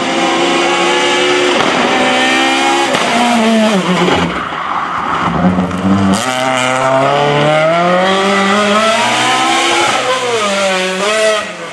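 Peugeot 206 rally car's engine pulling hard at racing revs. The pitch climbs through the gears and falls steeply twice as the car brakes and downshifts for corners.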